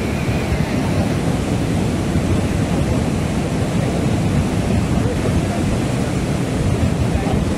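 River in flood: fast, muddy water rushing steadily past and against an eroding earth bank.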